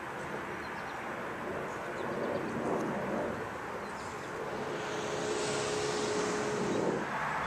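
Steady distant engine rumble that swells in the second half, with a held humming tone and rising hiss, as of a vehicle or aircraft passing, then eases off near the end.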